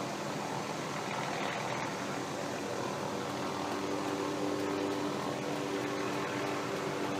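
Helicopter running with a steady drone, a few steady pitched tones joining in about halfway through.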